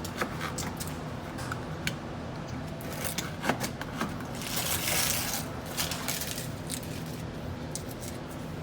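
Hand work on wallpaper: scattered light clicks and taps, with a scraping rub across the paper about halfway through, over a steady low hum.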